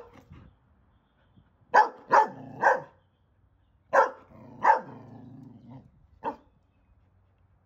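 A dog barking in short, sharp barks: three in quick succession about two seconds in, two more around four seconds, and a single shorter bark near the end.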